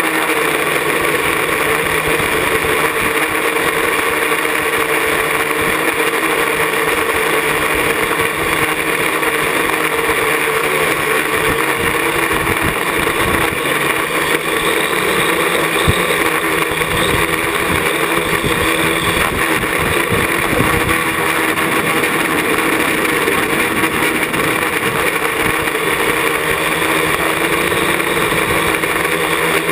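Parallax ELEV-8 quadcopter's electric motors and propellers whirring steadily, heard close up from a camera mounted on the craft as it descends.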